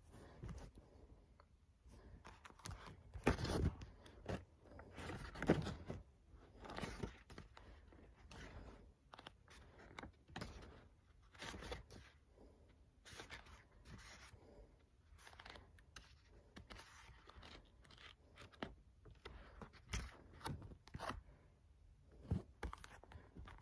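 Hands handling a paperback book: pages flipped and riffled and the cover rubbed and turned, a string of irregular faint paper rustles, the loudest at about three and five and a half seconds in.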